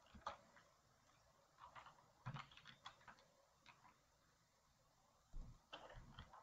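Near silence broken by faint, scattered clicks of computer keys and a mouse, with a pause of over a second in the middle.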